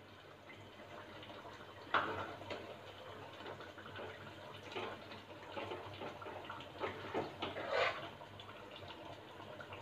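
Mashed boiled tapioca being tipped and spooned into a pot of chicken curry, with soft wet plops and squelches. There is a sharp knock about two seconds in and a run of louder wet sounds towards the end.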